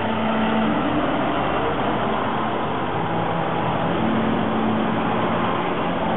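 Scania fire engine's diesel engine running as the truck drives slowly past close by, a steady, dense rumble whose low hum shifts in pitch a few times.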